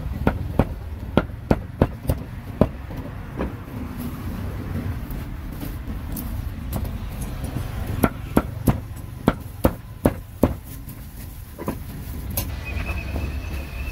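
A cleaver chopping grilled pork on a chopping block: sharp chops about two to three a second, in two runs with a pause of several seconds between, over a steady low rumble.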